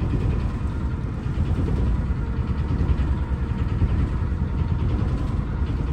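Steady low rumble of the sailing yacht's inboard engine ticking over in neutral.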